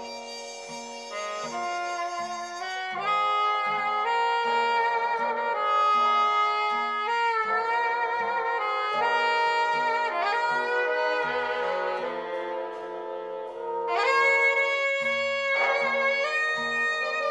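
Big band playing swing jazz: saxophone section and brass over piano and upright bass, with the whole ensemble coming in louder about fourteen seconds in.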